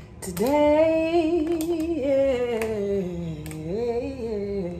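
A woman's voice singing one long drawn-out wordless phrase, the pitch sliding slowly down, lifting briefly near the end, then falling again.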